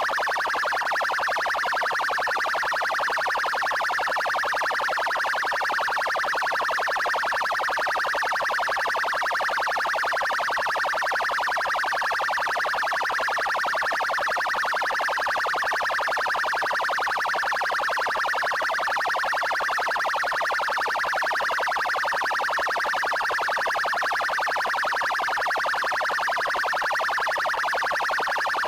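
Police car electronic siren of the Paraná military police (PMPR) on its 'trail' tone: a fast, even pulsing that holds one pitch and one level without rising or falling.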